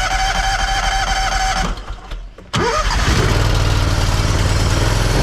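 Pressure washer engine being started with its electric starter: a steady starter whine for under two seconds, a short pause, then a second crank on which the engine catches about two and a half seconds in and settles into a steady run.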